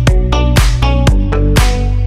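Background electronic dance music with a steady, quick beat and sustained synth notes.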